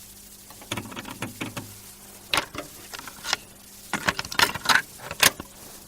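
Irregular clicks, taps and rattles, a dozen or so at uneven spacing and loudest in the second half, over a faint steady low hum; no music.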